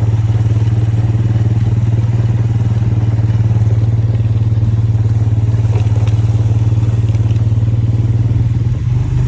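Four-wheeler (ATV) engine running at a steady speed while riding, a constant low drone.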